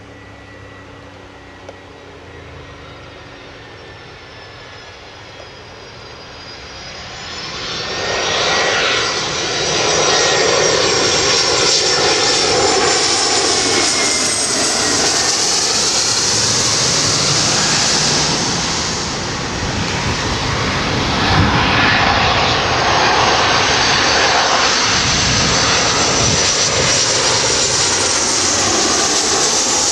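Jet airliner on short final, its engines growing loud from about six seconds in and staying loud, with a high-pitched whine over the engine noise.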